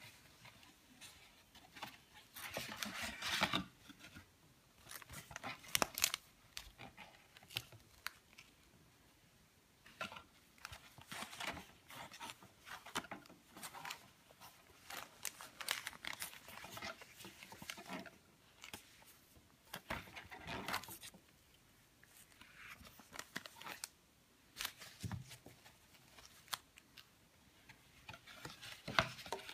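Paper booklets and card inserts being handled and leafed through with cotton-gloved hands: intermittent rustling and sliding of paper, with a few sharp taps.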